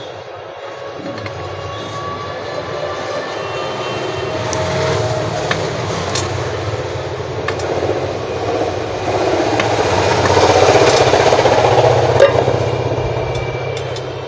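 Low rumble of a passing vehicle over a steady low hum, building to its loudest about ten to eleven seconds in and then easing off.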